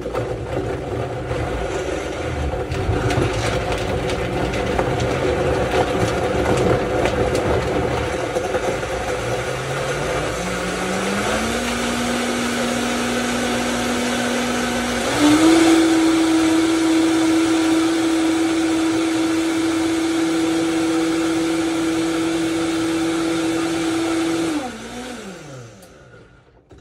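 Vitamix high-speed blender blending kale, frozen fruit and liquid. The motor's pitch climbs in steps as the speed is turned up, then jumps higher and louder about fifteen seconds in. Near the end the blender is switched off and the motor winds down to a stop.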